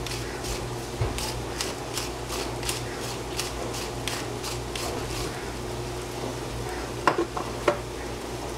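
A seasoning shaker shaken over a pot: a run of quick, even shakes, about three a second for some four seconds, over a low steady hum. Two sharp knocks follow near the end.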